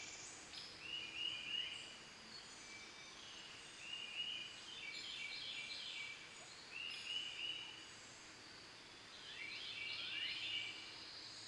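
Faint birdsong: short chirping phrases and trills, repeating every few seconds.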